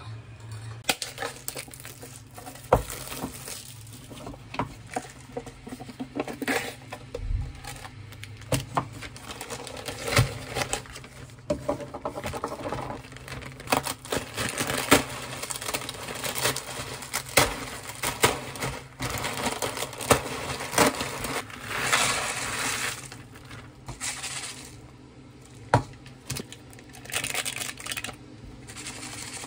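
Dry instant ramen noodles being crushed by hand inside a zip-top plastic bag: crinkling plastic with many sharp cracks and crackles, then a seasoning packet being torn open and handled over a paper ramen cup.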